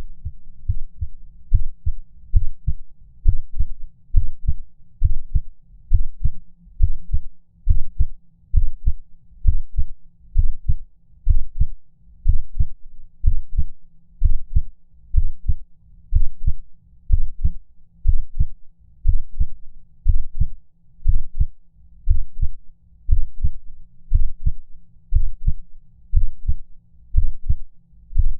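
A heartbeat sound effect: low, muffled thumps in a steady pulse of about one beat a second, meant as a heart skipping beats.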